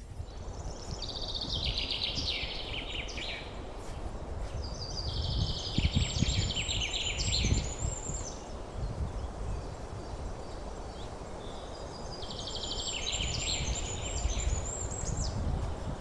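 A songbird singing three phrases of rapid, chattering notes, each run stepping down in pitch, over a steady low rumble.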